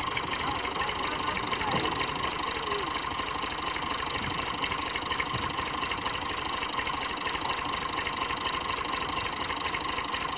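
Massey Ferguson 240's three-cylinder diesel engine idling steadily.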